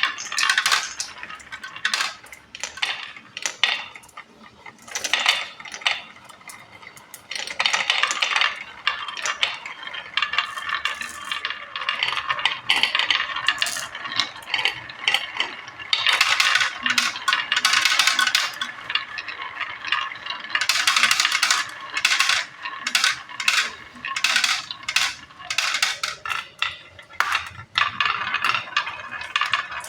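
Marbles rolling and clattering down a marble run, with many sharp clicks as they strike the track and each other, and stretches of steady rolling rattle as several run together.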